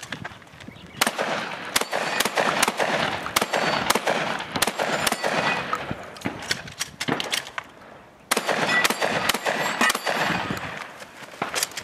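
Benelli M2 semi-automatic 12-gauge shotgun firing in quick succession, about two to three shots a second, with steel targets clanging as they are hit. The shots start about a second in, ease off for a moment past the middle while the shooter reloads, and then come fast again.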